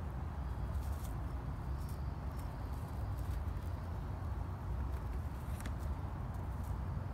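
Outdoor ambience: a steady low rumble, with a few faint rustles and ticks and brief faint high chirps over it.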